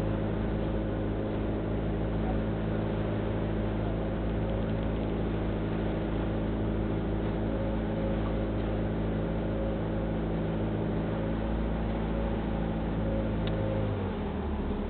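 Outrigger passenger boat's inboard engine running at a steady cruising speed, with water and wind noise over it; the engine note changes and eases slightly near the end.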